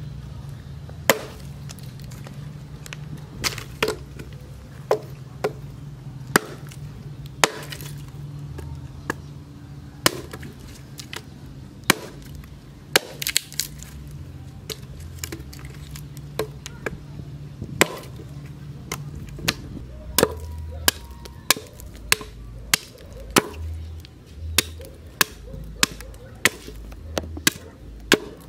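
Hand-forged axe made from a leaf spring chopping into wood on a log: sharp single strikes at an uneven pace of about one a second, coming quicker, about two a second, in the last third as it splits and trims a stick.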